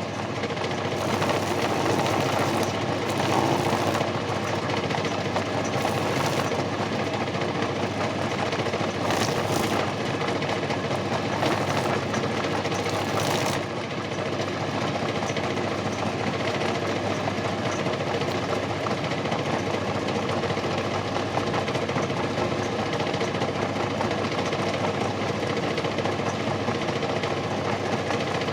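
Used washing-machine motor driving a homemade PVC lathe, running steadily, with a few short hissy scrapes in the first half.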